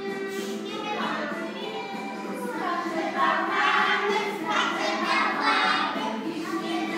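A group of young children singing a song together over musical accompaniment.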